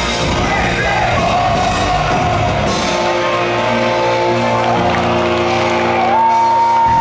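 Hardcore punk band playing live through a club PA as the song ends. The full band plays for about three seconds, then the chords are left ringing as steady held tones. Near the end a high tone slides up and holds.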